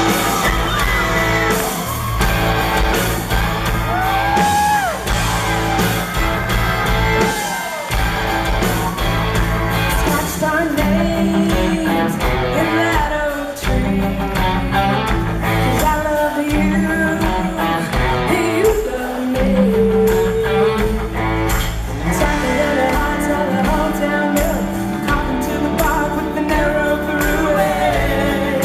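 Live country-rock band playing, with guitar, bass and drums and singing over them.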